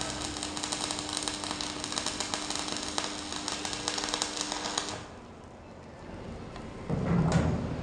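Electric arc welding: a fast, steady crackle of the arc that stops about five seconds in. A louder, low rumbling sound comes in near the end.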